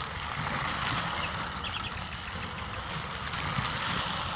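Battery-powered knockoff Thomas toy train running fast around a lightweight plastic track, its small electric motor and plastic gearing making a steady running noise.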